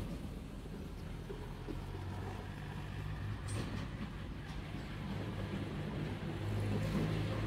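Small motorbike engine running at a steady speed, with road noise; it grows a little louder near the end.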